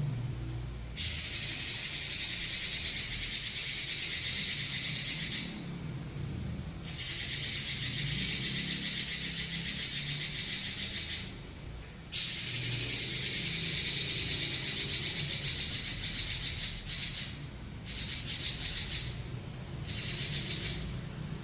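Pekin robin (red-billed leiothrix) singing long, fast, high rolling trills: three unbroken runs of about four to five seconds each with short pauses between, then two shorter runs near the end.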